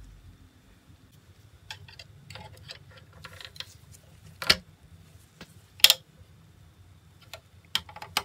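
Parts of a Chogokin Thousand Sunny ship model clicking and tapping as they are handled and fitted together: a mast with its sail being set into place. Scattered light clicks, with two much louder sharp clicks about a second and a half apart in the middle.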